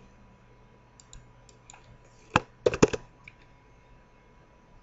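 Computer mouse and keyboard clicks: a few faint clicks, one sharp click about two and a half seconds in, then a quick run of about four keystrokes.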